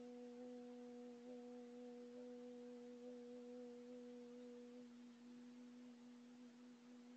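Faint, low, steady ringing tone with overtones, slowly fading, with a slight waver: the dying ring of a singing bowl. The highest overtone drops out about two-thirds of the way through.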